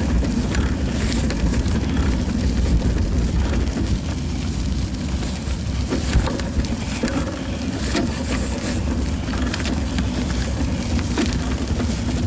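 Steady low rumble of bicycle tyres rolling over a snow-dusted, icy paved path, with wind noise and scattered small clicks and rattles.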